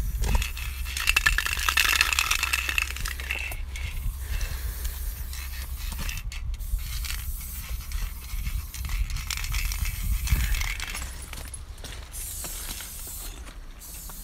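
Aerosol spray-paint can hissing as paint is sprayed onto a rough concrete wall, in long bursts that stop briefly a few times.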